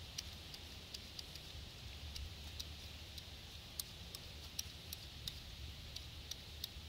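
Scattered sharp crackles and ticks at irregular intervals, roughly one or two a second, over a faint steady hiss and a low hum.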